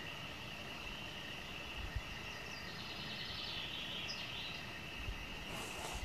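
Summer forest ambience: a steady high-pitched insect drone, with a faint songbird trill of rapid repeated notes around the middle. A few light knocks from footsteps or camera handling come near the end.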